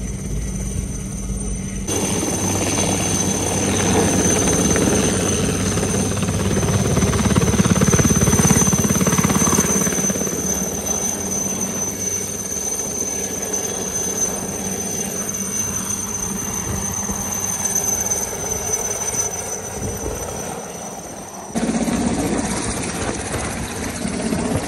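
Single-engine light helicopter running close by: turbine whine over rotor noise, loudest about a third of the way in. The sound changes abruptly near the end.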